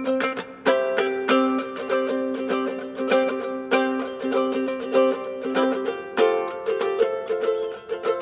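Instrumental passage of a live indie song: a plucked string instrument, ukulele-like, playing a steady rhythm of ringing chords and notes, with no singing.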